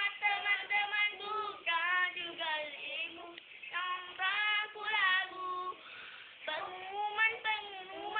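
A young child singing in a high voice, in short phrases with held, wavering notes and brief breaks between them.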